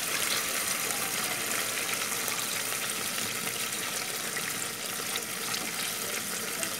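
A litre of water pouring steadily from a plastic jug into an aluminium cooking pot, splashing onto the sautéed pork and vegetables as the pot fills.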